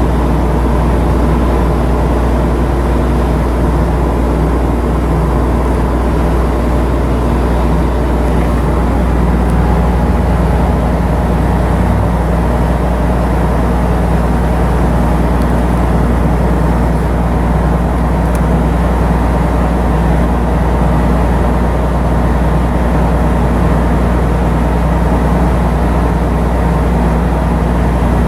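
Diesel engine of a coastal cargo ship running at a steady speed: a loud, even drone with a deep hum that does not change.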